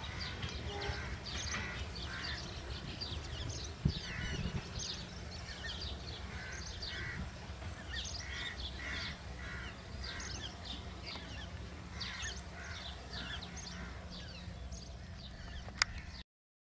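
Many short bird calls and chirps, repeating throughout, over a steady low rumble. There are two sharp clicks, one about four seconds in and one near the end, and then the sound cuts off.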